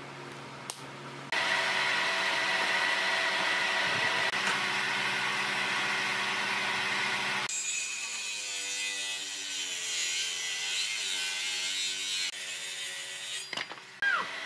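Handheld Maktec circular saw running and cutting through a thick red hardwood slab, starting suddenly about a second in; in the second half its pitch wavers as the blade loads in the wood. A sharp knock near the end.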